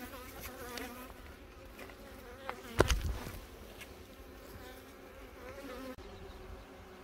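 Honeybees buzzing around an opened hive as the frames are worked, from a colony that is attacking the beekeepers. About three seconds in there is a single sharp knock.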